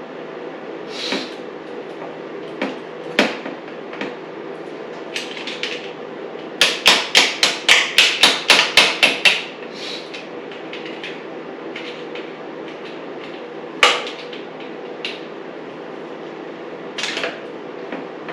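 Metal hand tools striking and clinking on dirt bike engine parts. Scattered single knocks, then a quick run of about a dozen sharp metallic taps, about four a second, in the middle, and another knock near the end.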